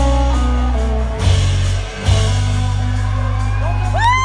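Live rock band playing electric guitars, bass and drums, with drum hits about a second and two seconds in. Near the end a long held note slides in.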